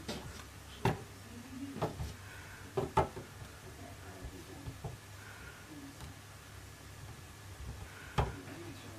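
A handful of scattered light knocks as bars of soap are handled and set down on a metal wire rack, over a faint low steady hum.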